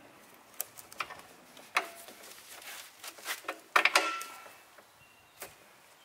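Drum brake shoes and their return springs being levered onto the backing plate of a 1983 Honda ATC70: a few scattered metallic clicks, then a louder clack with a short metallic ring about four seconds in as the shoe snaps into its seat.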